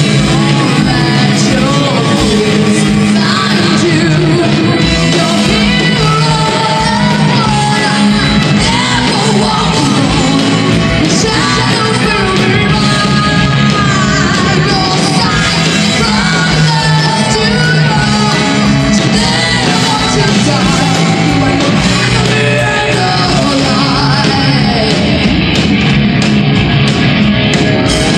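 A metal band playing live, with a female singer's vocals over guitars and drums that keep up a quick, steady pulse of kick-drum hits.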